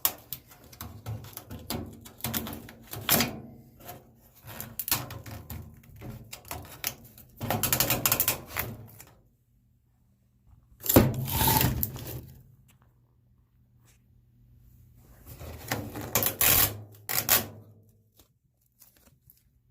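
Hands handling microwave scrap parts: a run of small clicks, rattles and knocks, then two louder bursts of clatter with a sharp knock, separated by silent gaps.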